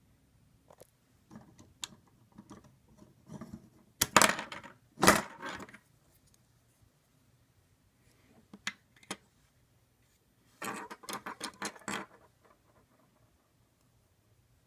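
Hard plastic Lego Bionicle parts clicking and clattering as they are handled: scattered clicks, two loud clatters about four and five seconds in, and a quick run of rattles around eleven seconds in.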